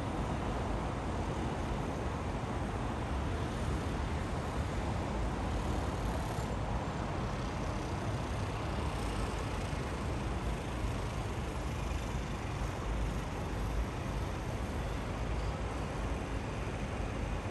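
Steady rumble of distant city road traffic, an even wash of noise heaviest in the low end, with no single vehicle standing out.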